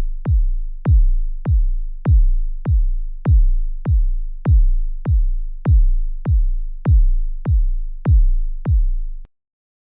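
Suspense sound effect: a deep electronic bass pulse, each beat a sharp click over a fading low boom, repeating evenly about every 0.6 s. It stops abruptly near the end.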